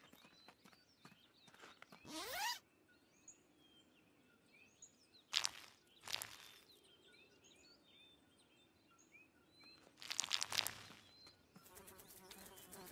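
Quiet jungle ambience with faint, scattered insect chirps. It is broken by a few brief swishes: one rising about two seconds in, and the loudest a little after the middle. A run of quick faint ticks comes near the end.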